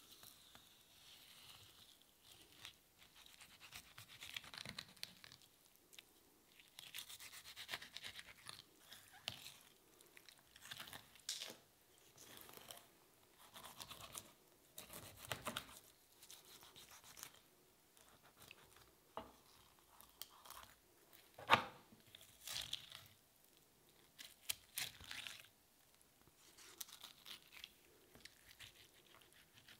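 Fillet knife slicing and scraping through halibut flesh along the bones, in short, uneven strokes, with one sharp knock about two-thirds of the way through.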